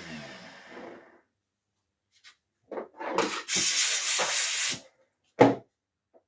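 A few short scuffing sounds, then a loud hiss of spray lasting a little over a second, and a single sharp knock near the end.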